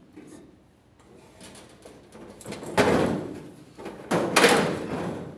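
A large plastic duct piece being worked loose from a Whirlpool dryer, scraping and knocking against the metal cabinet in two loud rough scrapes about three and four seconds in, with lighter scuffs around them.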